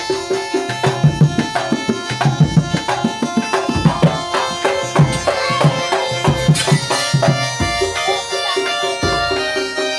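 Traditional music with quick hand-drum beats under sustained melodic tones.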